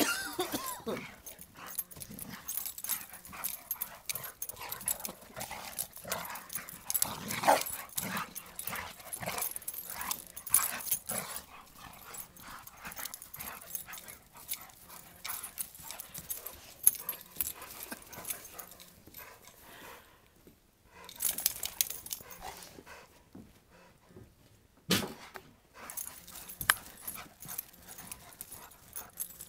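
Two dogs at rough play, barking and yipping now and then among irregular knocks and scuffles.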